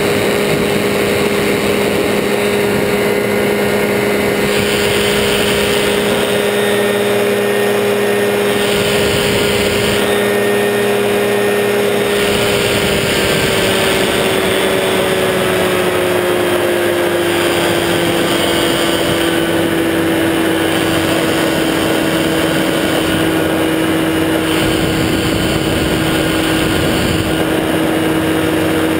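Powered parachute's engine and propeller running steadily in flight, loud and constant; a little under halfway through, the engine note slowly drops in pitch and then holds at the lower speed.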